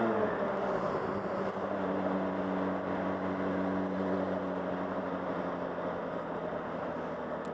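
Yamaha FZ6 Fazer's 600 cc inline-four engine running under way, heard with wind and road noise on a helmet-mounted camera. The engine note dips and blurs near the start, then settles to a steady drone.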